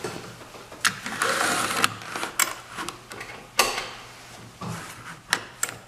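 A newly fitted retractable golf-cart seat belt being tried out: the webbing rasping out of and back into its retractor, with a series of sharp clicks from the buckle and latch.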